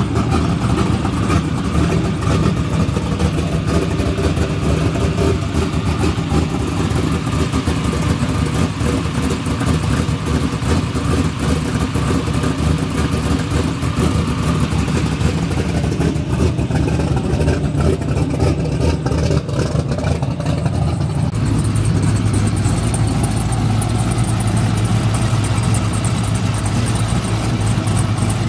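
Car engine running steadily at low revs, with no hard full-throttle run. About 21 seconds in the tone shifts to a steadier low drone with a faint high whine above it.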